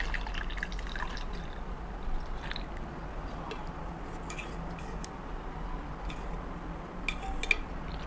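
Hot noodle soup trickling and dripping from a stainless steel insulated food jar into a ceramic bowl, with a couple of light clicks.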